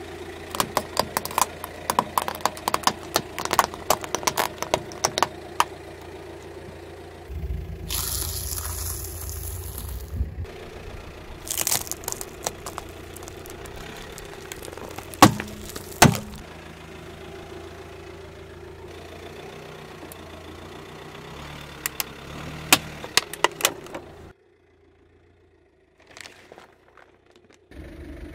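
A car tyre slowly rolling over and crushing a series of objects, with the car's engine running low underneath. A quick run of sharp plastic cracks comes in the first six seconds as small plastic toy frogs break. Two loud crunching snaps come past the middle as vegetables such as a cucumber and carrot are crushed, with a few more cracks later and a short near-silent gap near the end.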